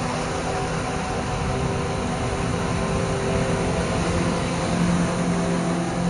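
Slow background music of long held notes, with a new low note coming in near the end, over the steady rush of surf.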